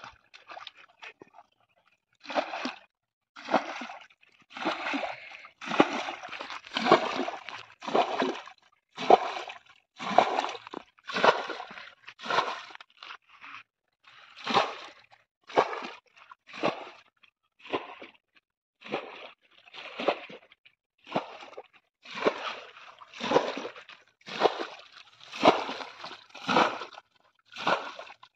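Muddy water being bailed out of a mud hole with a steel bowl: a splash and slosh with each scoop and pour, about one a second, starting about two seconds in.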